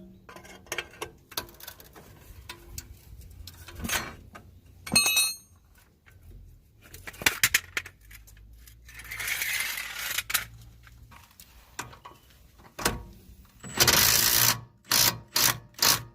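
Hand tools and small metal parts clinking and knocking, with a brief metallic ring, a short rushing noise and a cluster of loud clacks near the end.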